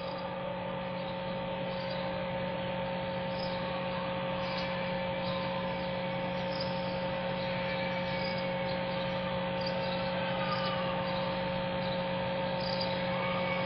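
Steady hum and hiss from a mosque's open sound system, with a few constant tones.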